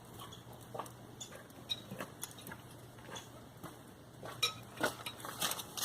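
Scattered light metallic clinks of socket-wrench tools being handled and knocked together, a few sharper ones after about four seconds.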